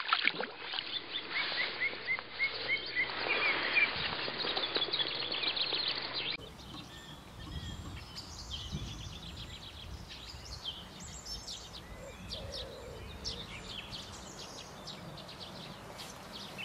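Songbirds chirping and singing by a lake. Near the start there is a splash as a trout drops back into the water, and a noisy hiss lies under the birdsong until it drops away about six seconds in.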